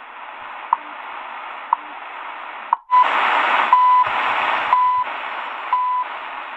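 Shortwave time-signal station heard through the Eton Elite Traveler's small speaker: a short tick once a second over static hiss. About three seconds in, the sound cuts out for a moment and comes back louder, with a longer beep each second.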